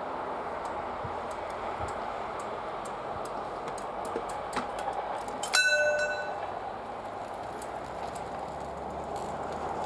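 Mechanical railway crossing barriers being raised by cable: light irregular clicks from the barrier mechanism over a steady outdoor hiss. About halfway through comes a single loud metallic clang that rings on for about a second.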